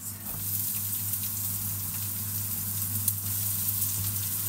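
Sliced onion and garlic frying in olive oil in a stainless steel pan: a steady sizzle with small crackles.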